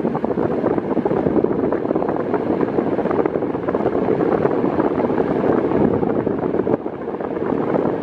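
Arno Silence Force table fan running on its lowest speed, its airflow rushing steadily over the microphone. It dips briefly about seven seconds in.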